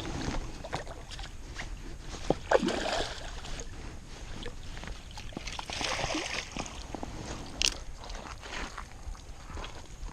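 Water sloshing and splashing in two louder surges, about two and a half and six seconds in, amid scattered small knocks and clicks.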